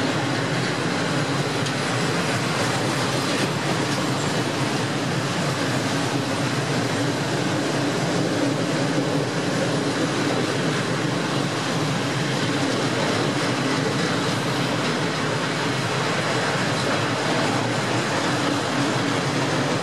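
Freight train of loaded open coal wagons rolling past: a steady, unbroken noise of wagon wheels running on the rails.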